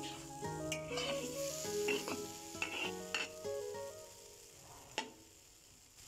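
Okra-mango curry sizzling in a black wok while a metal spoon stirs and scrapes through it against the pan, with one sharp tap about five seconds in.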